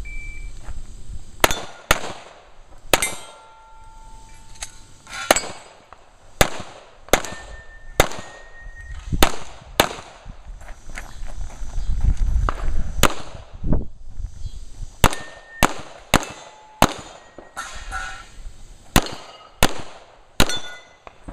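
Pistol shots fired one at a time at an uneven pace, about twenty in all, roughly one every half second to second. Several are followed by a short ringing tone.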